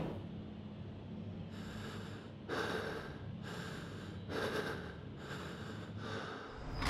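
A man breathing deeply and audibly, about six breaths in and out at roughly one a second, over a low steady room hum.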